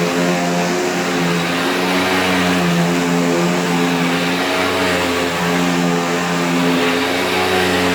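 Sharp Twin Energy EC-TU2709S upright vacuum running: its Ametek motor gives a steady hum over rushing air, the pitch wavering only slightly.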